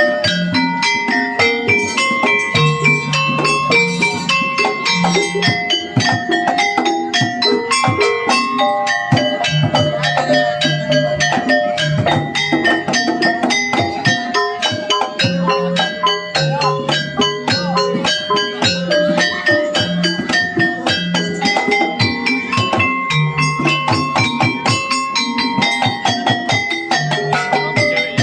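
Javanese gamelan music of the kind that accompanies kuda kepang: a busy melody of short struck metallophone notes over hand-drum strokes, in a steady repeating pattern.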